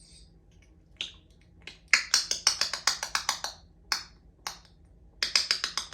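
Congo African grey parrot making sharp clicking sounds: a few single clicks and two fast runs of about eight clicks a second, the longer run in the middle and a shorter one near the end.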